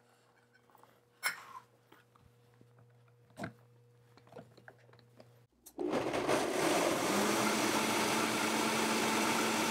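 Two light knocks, then about six seconds in a countertop blender starts up and runs steadily, pureeing raspberries in sugar syrup.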